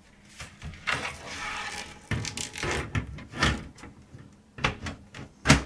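Knocks, clunks and scraping as a computer power supply unit is handled and fitted into a PC case, with a scrape about a second in and the loudest knock near the end.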